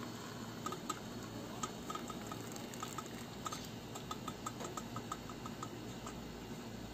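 Strained lagundi leaf tea dripping from a strainer into a cup: faint, quick drips, about four a second, that stop shortly before the end.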